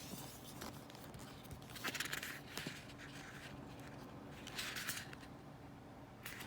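Sticker packs being handled: three short bursts of quiet rustling, about two seconds in, a little before the end, and again at the end.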